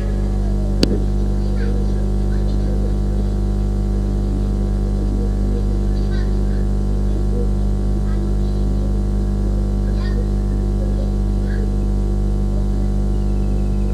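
Steady electrical mains hum with evenly spaced overtones, holding at one pitch throughout, with a single sharp click about a second in.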